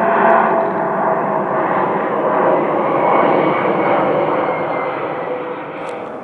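Jet airliner passing low overhead on its landing approach: engine noise with whining tones that drop slightly in pitch as it fades toward the end.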